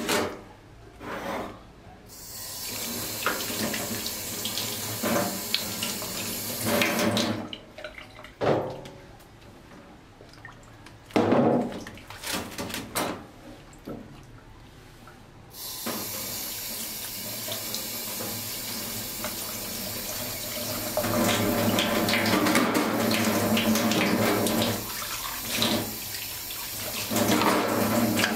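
Kitchen tap running into a stainless-steel sink, with water splashing over raw chicken breasts as they are rinsed by hand. The flow is steady through the second half. Before it come knocks and rustling from handling the plastic-wrapped tray.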